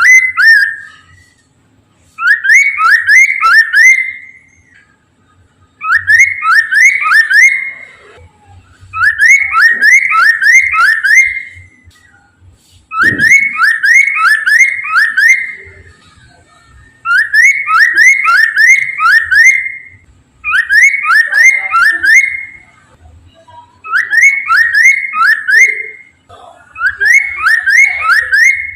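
Poksay mandarin, a laughingthrush, singing loudly: phrases of quick rising whistled notes, each about two seconds long, repeated about every three seconds. A soft low knock sounds about halfway through.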